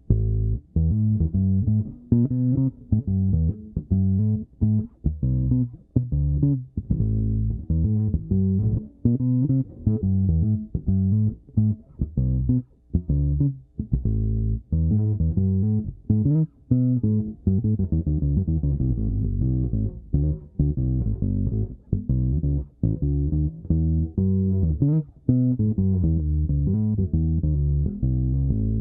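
Nordstrand Acinonyx short-scale electric bass played through its neck pickup alone, on the second of its four tone settings: a continuous line of plucked notes with short breaks between phrases.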